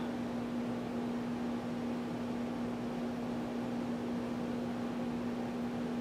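Breezemore 56-inch ceiling fan running just after being switched on and coming up to speed: a steady whoosh of moving air with a steady low hum.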